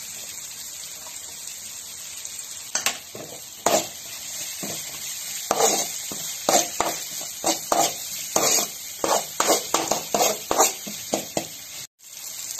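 Chopped garlic and ginger sizzling in oil in a metal kadai. From about three seconds in, a steel spoon scrapes and knocks against the pan in quick, repeated strokes as the masala is stirred.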